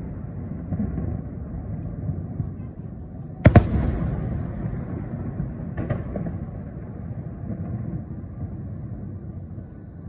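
Aerial firework shells bursting: a loud double bang about a third of the way in, with a short echo trailing off, and a fainter bang about six seconds in.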